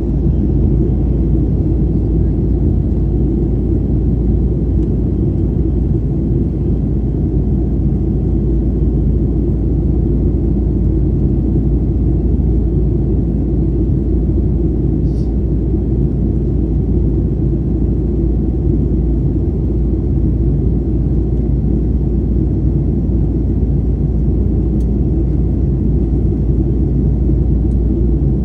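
Steady low rumble inside the cabin of a Boeing 737 airliner in flight: engine and airflow noise, even throughout, with one faint tick about halfway through.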